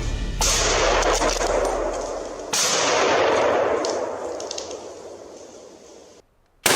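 Two gunshots about two seconds apart, each with a long rolling echo that fades away, followed near the end by a brief silence and another sudden loud crack.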